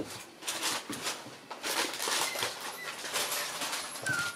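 Paws and claws of a cat and a Shiba puppy scuffling and clicking on a wooden floor: a busy run of short, irregular taps and scrapes.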